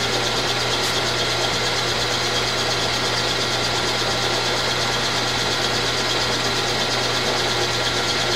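Milling machine running steadily in back gear, its spindle turning a disc-type gear cutter on an arbor, with a constant electric hum under the mechanical running noise. The cutter is being brought up to touch off on the workpiece before the depth of cut is set.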